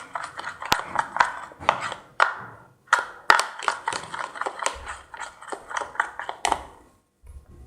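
A utensil stirring a wet slime mixture of glue, activator and facial foam in a container, with irregular clicks and taps against its sides.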